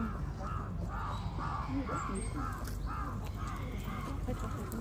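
A crow cawing over and over in a steady series, about two caws a second, stopping shortly before the end.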